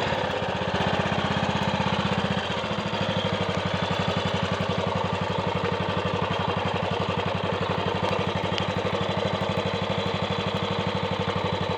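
Triumph Sports Cub's single-cylinder four-stroke engine running slowly with an even, regular beat, the note shifting slightly about two and a half seconds in.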